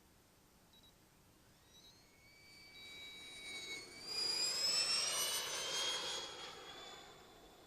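The 145 mm electric ducted fan of a large RC model jet passing by in flight. Its high whine builds from about two seconds in, is loudest around the middle, and then drops in pitch as it fades.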